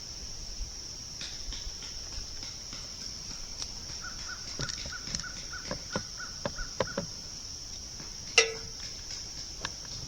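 Steady high-pitched chorus of crickets, with scattered light clicks and knocks from about four seconds in and one sharp, louder knock near the end.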